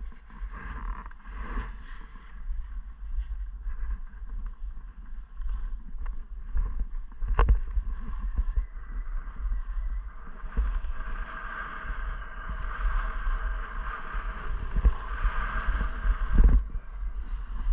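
Wind buffeting the action camera's microphone as a skier runs downhill, with skis hissing and scraping over packed snow. The hiss gets louder in the second half, with a sharp click about seven seconds in and a thump near the end.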